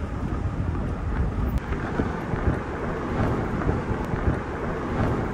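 Steady low rumbling noise that rises and falls unevenly, with no speech.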